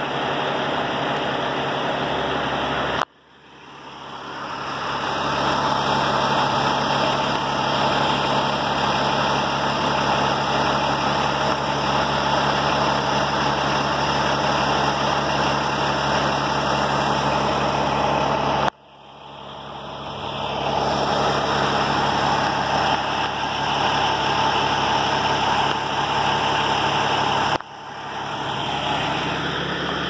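Semi truck's diesel engine idling steadily under a broad hiss. The sound cuts out abruptly three times and swells back over a couple of seconds each time.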